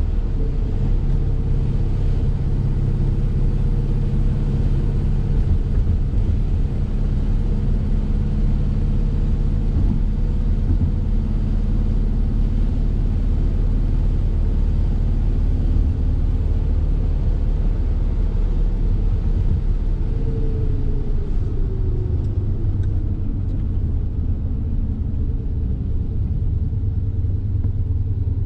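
BMW Glas 3000 GT's V8 engine running steadily under way, heard from inside the cabin together with road and tyre rumble. Around two-thirds of the way through, one tone sinks in pitch.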